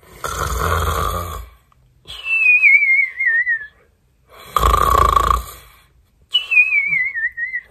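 A man's mock snoring, done twice: a rasping snore on the in-breath, then a whistle on the out-breath that slides down in pitch with a quick wobble, the cartoon sleeper's snore-and-whistle.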